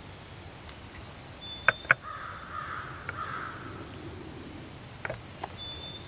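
Woodland birds calling: thin high whistled notes come and go, two sharp loud clicks sound close together, and a harsh raspy call lasting about a second follows them. A few fainter clicks come near the end.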